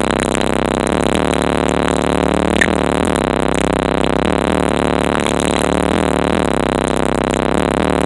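Bass-heavy music playing through a car stereo with two large subwoofers, heard inside the car's cabin, with pitched tones that slide down again and again over a steady deep bass.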